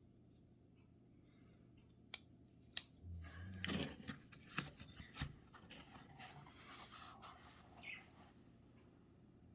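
Handling of a folding pocket knife: two sharp clicks a little under a second apart, then a few seconds of rustling and scraping with small ticks.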